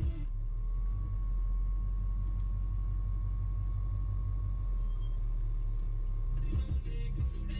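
Steady low rumble of a 1981 Chevy C10 pickup driving, with a thin steady tone above it. Music comes back in near the end.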